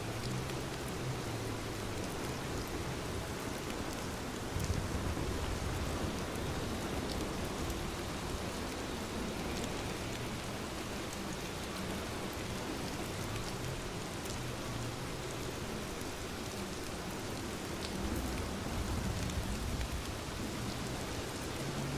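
Steady rain falling, an even hiss of drops, with a low rumble swelling up twice: once a few seconds in and again near the end.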